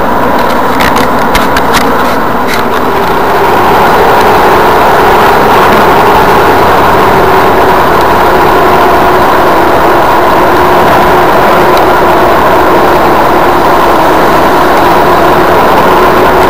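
Car engine and road noise heard inside the cabin while cruising on a highway: a steady roar with a constant whine running through it. A few sharp clicks sound in the first couple of seconds.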